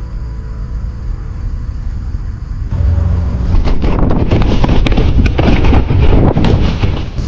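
Wind buffeting the microphone, much louder from about three seconds in, with rapid crackling and rustling over it.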